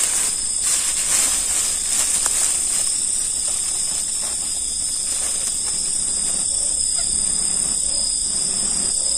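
A steady high-pitched chorus of crickets and other insects. Soft rustling of a plastic bag comes in the first couple of seconds.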